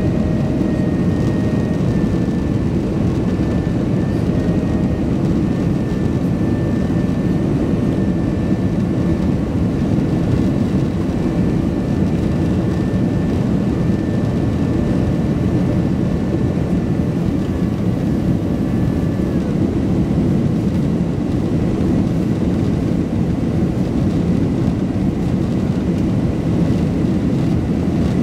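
Cabin noise of a Boeing 767-300 airliner climbing after takeoff: a steady rumble of jet engines and airflow heard from a window seat over the wing. A faint high whine in the background stops about two-thirds of the way through.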